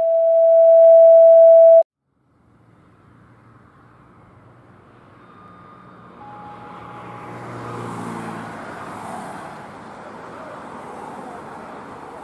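A loud, steady electronic tone held for about two seconds that stops abruptly. After a short silence comes outdoor street noise of traffic and a low engine hum, slowly growing louder.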